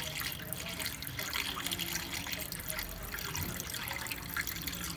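Pink long-life coolant pouring steadily from a plastic jug into a car radiator's filler neck, a continuous splashing trickle of liquid.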